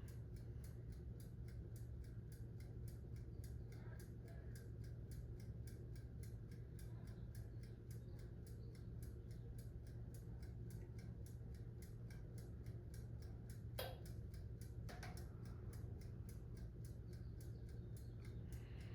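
Toaster oven's mechanical dial timer ticking steadily and faintly, about four ticks a second, over a low steady hum, with two sharper clicks about fourteen and fifteen seconds in.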